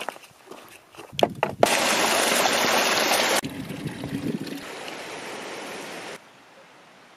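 Running water of a mountain stream: a loud, steady rush that cuts suddenly to a quieter stretch of flowing water about three and a half seconds in, then falls away near the end. A few short knocks come just before the water starts.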